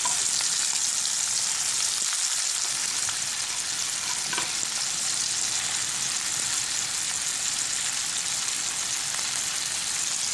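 Sea slug pieces and chopped onion frying in hot oil in a pan: a steady sizzle.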